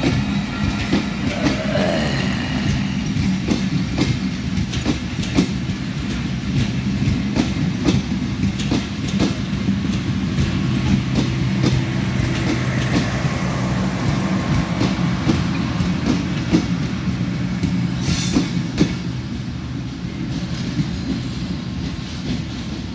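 Passenger train coaches rolling past close by: wheels clacking over the rail joints over a steady low hum. The sound eases slightly near the end as the last coach moves away.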